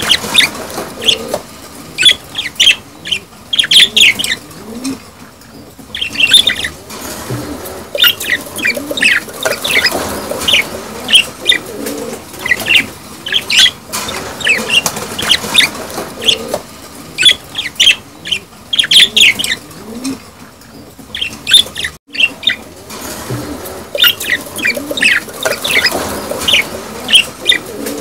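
Budgerigars chattering and warbling in rapid clusters of short, high chirps and squeaks, the courtship chatter of breeding budgies.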